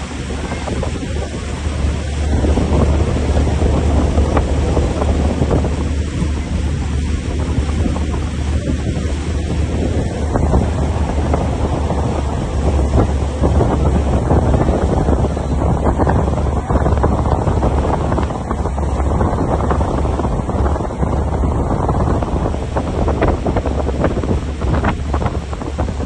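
Wind buffeting the microphone and water rushing in a boat's wake, over the steady low rumble of the boat's engine.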